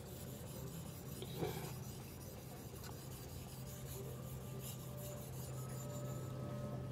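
D2 steel knife blade stroked back and forth on a Suehiro 3000-grit Japanese whetstone: a faint, repeated scraping as the edge is polished at the fine-grit stage. A steady low hum sits underneath.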